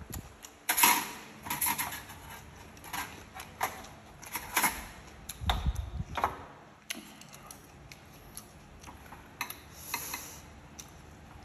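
Chopsticks and a metal spoon clicking and scraping against ceramic plates and bowls while serving food: about a dozen sharp, irregular clinks, most of them in the first half.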